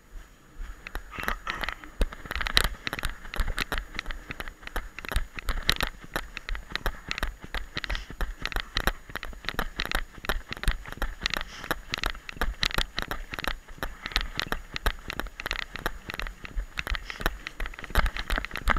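Radio-controlled model plane heard from its own on-board camera during take-off and low flight: the motor and airflow come through as a dense, irregular crackling and buffeting over a steady hiss and rumble, which rises sharply as the throttle comes up at the start.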